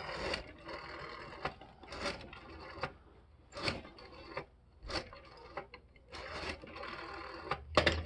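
Rotary telephone dial being turned and let go, digit after digit: each release brings a stretch of about a second of quick, even clicking as the finger wheel spins back to rest, with sharp clicks between digits.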